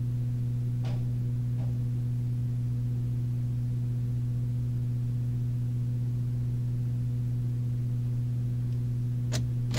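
Steady, fairly loud electrical mains hum on an interview-room recording, with a couple of faint clicks about a second in. Near the end there are a couple of sharp clicks as the room's door is unlatched.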